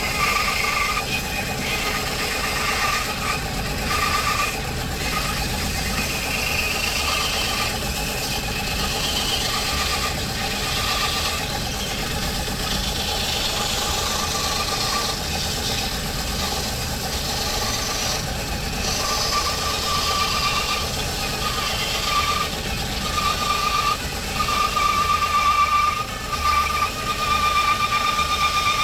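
Homemade bandsaw running and cutting through a piece of timber with a wood blade. There is a steady machine noise under a whine that comes and goes, growing louder in the last few seconds.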